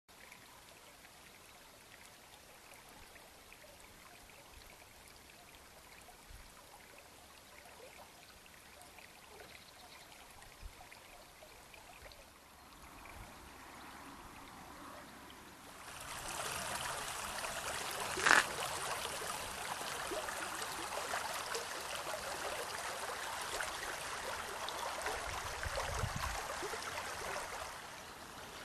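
Shallow river running over gravel riffles: a steady babble of flowing water, faint at first and clearly louder from a little past halfway. A single short knock sounds about two-thirds of the way through.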